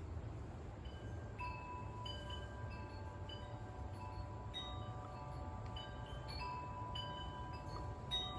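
Chimes ringing: several bell-like notes struck one after another at irregular times, starting about a second in, each ringing on and overlapping the next, over a low steady hum.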